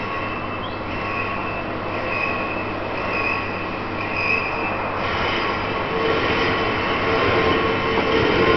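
Wheel lathe turning a railway wheelset, running steadily with a high tone that swells and fades about once a second. About five seconds in the sound changes and grows louder, with a lower steady tone coming in.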